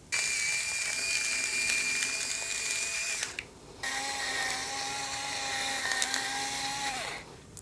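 Electric salt and pepper grinder running twice, about three seconds each with a short pause between, grinding seasoning onto raw steaks. The second run has a lower whine than the first.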